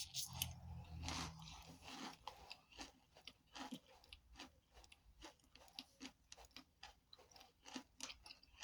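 Someone chewing toasted powdered starch chunks with mouth close to the microphone: a steady run of faint, short crunches, about two to three a second.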